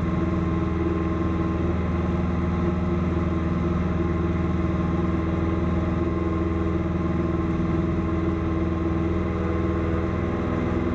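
Single-engine light aircraft's piston engine and propeller, a steady drone heard from inside the cabin during the climb-out after takeoff.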